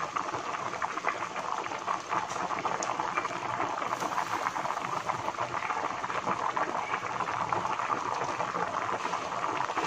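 Pot of macaroni soup at a rolling boil: a steady mass of bubbling and popping from the broth.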